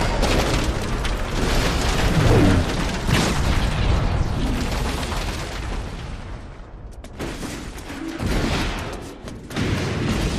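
Animated action-film sound effects: loud, dense explosions and crashing debris, mixed with music. The din drops briefly about two-thirds through, then swells again near the end.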